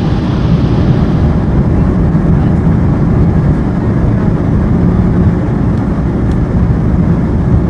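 Airbus A220-300 on its takeoff roll, heard in the cockpit: the Pratt & Whitney geared turbofans at takeoff thrust and the wheels running on the runway make a loud, steady low rumble.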